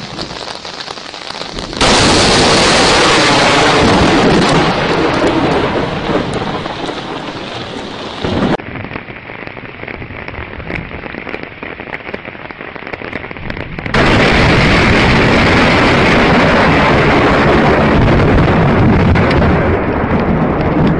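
Thunderstorm with close thunder over steady rain. A sudden, very loud thunderclap hits about two seconds in and rumbles on for several seconds. Another abrupt, loud burst of thunder comes about fourteen seconds in and keeps going.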